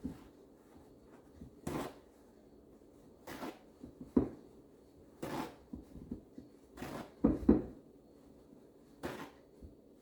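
Handling noises: a series of short, irregular rustles with a few sharp knocks, the loudest a double knock about seven seconds in.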